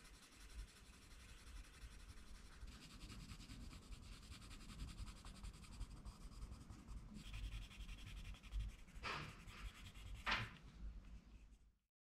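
Coloured pencil scratching rapidly back and forth on paper as areas are shaded in, with two louder strokes near the end.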